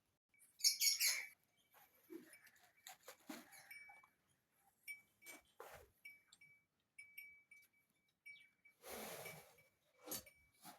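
Birds chirping here and there, with scattered light knocks and a short rustling burst about nine seconds in.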